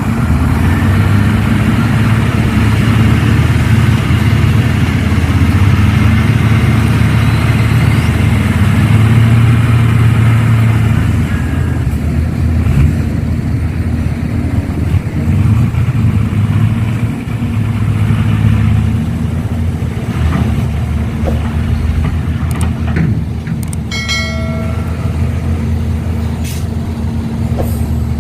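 Excavator and dump truck engines running steadily with a low diesel drone. Near the end comes a short horn toot, and a few sharp clicks.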